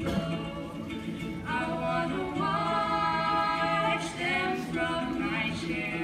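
Women singing a song live, with a long held note near the middle, over ukulele accompaniment.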